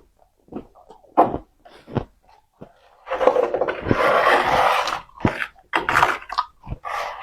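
Powdery freezer frost crunching close to the microphone: a few short crunches, a long dense crunch of about two seconds near the middle, then a run of quick crunches.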